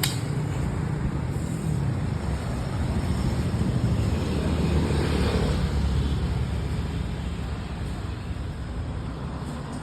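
An engine running with a steady low rumble that swells a little around the middle, then eases.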